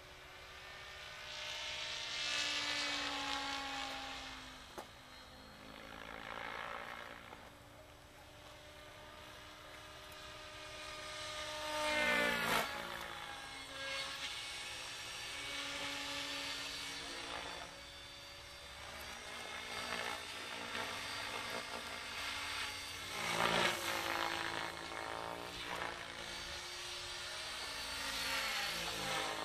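Electric radio-controlled Henseleit TDR helicopter flying: its main rotor and brushless motor drone in several stacked tones that swell and bend up and down in pitch as it sweeps past and turns. It is loudest about twelve seconds in and again near the end.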